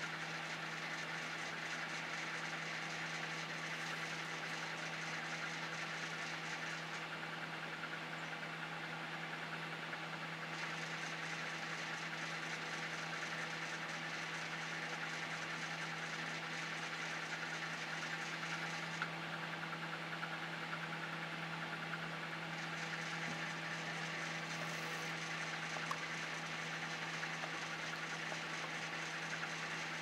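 Saturn microwave oven running on high power with its outer casing off: a steady electrical hum. A faint high hiss over it drops away twice for a few seconds.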